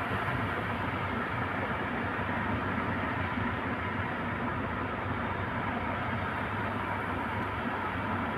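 Steady, unbroken rushing roar of heavy ocean surf.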